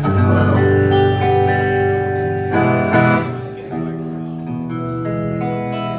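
Electric guitars through amplifiers ringing held notes and chords, with a loud chord struck right at the start and new notes coming in every second or so: a band tuning up and noodling between songs.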